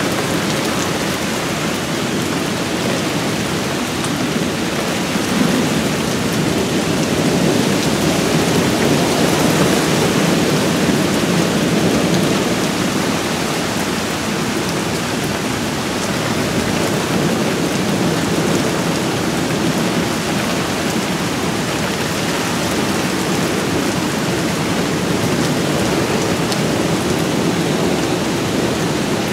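Heavy rain falling steadily in a thunderstorm, with thunder rumbling low under it and swelling twice, about a third of the way in and again at the end.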